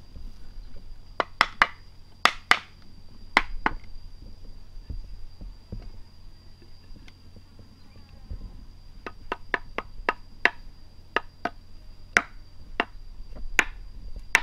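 Sharp knocks of a tool striking wood as a mortise is cut into a log by hand. About seven come in quick succession at the start, then after a pause a steadier run of about a dozen from about nine seconds in.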